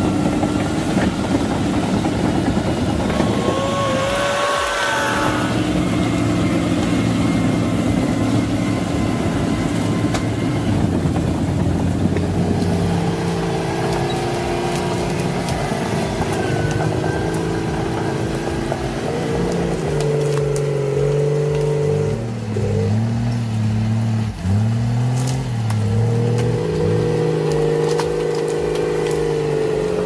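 Diesel engine of a John Deere tracked grapple skidder running under load, its pitch rising and falling repeatedly in the second half as the machine works. A short high gliding whine comes about four seconds in.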